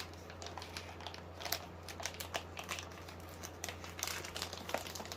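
Plastic bag crinkling in irregular small crackles as it is handled and pulled at to get it open.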